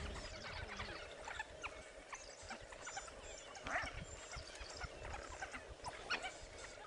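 Many short high-pitched squeaks and chirps, with a louder squeal about four seconds in, from a pack of African wild dogs tearing at a warthog.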